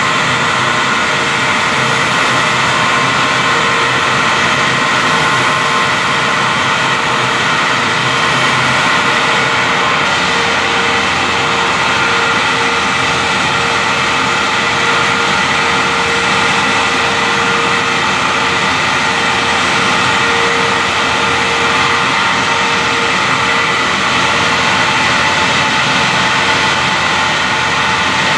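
Siphon-feed air spray gun spraying paint: a loud, unbroken rush of compressed air and atomised paint, with a steady hum of a few held tones underneath.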